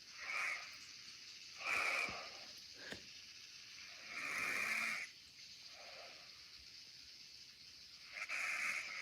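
A man snoring: rasping breaths, four clear ones spaced irregularly a second or more apart, the longest lasting about a second around four seconds in, with a fainter one around six seconds.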